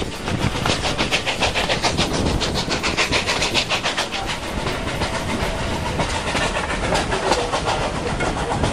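Steam locomotive working ahead of the train, its exhaust beating in a fast, even rhythm over the rumble of the carriages on the rails, heard from an open carriage window with wind rushing past. The beats grow weaker about six seconds in.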